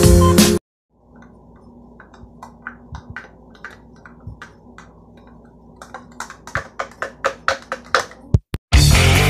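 Quiet light taps and clicks over a low steady hum, scattered at first, then coming faster and louder in the last few seconds; loud background music plays briefly at the start and returns near the end.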